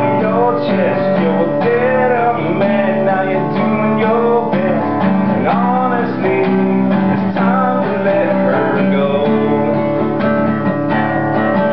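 An acoustic guitar being strummed, with a voice singing over it: a live performance of a song.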